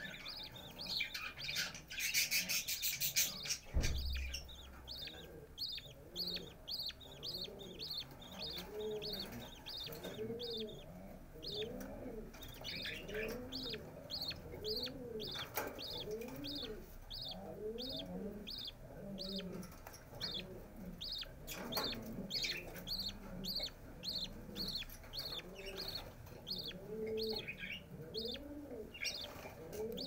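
Budgerigar chicks in a nest box giving a steady run of short, high-pitched begging peeps, about two a second, while the hen feeds them, with softer, lower warbling calls beneath. About two to four seconds in there is a loud burst of rustling that ends in a low thump.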